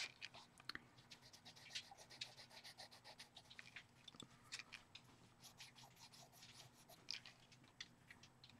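Faint, irregular scratching and rubbing on paper, many short strokes, typical of pastel pencil work on a colouring-book page.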